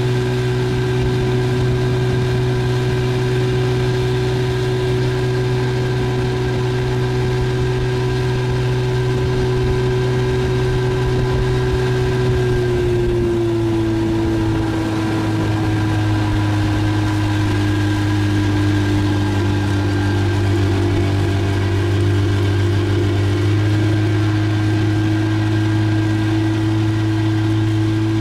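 Outboard motor of a small aluminum boat running steadily underway. Its pitch dips slightly about halfway through and then holds steady.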